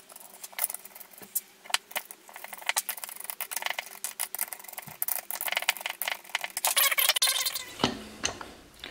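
Small metal clicks and rattles of nuts, washers and a nut driver as nuts are tightened onto the bolts of a wooden motor-mount plate, with a denser stretch of rattling about seven seconds in.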